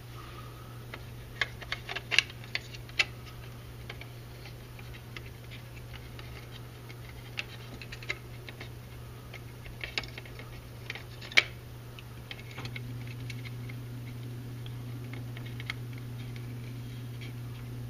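Scattered small clicks and taps of a circuit board and plastic controller case being handled and fitted together, loudest about two seconds in and again near eleven seconds, over a steady low hum that gets louder about two-thirds of the way through.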